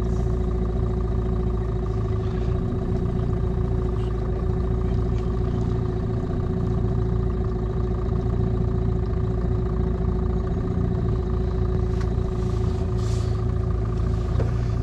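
Boat's outboard motor running at a steady speed, a constant even drone with a strong steady tone over a low rumble.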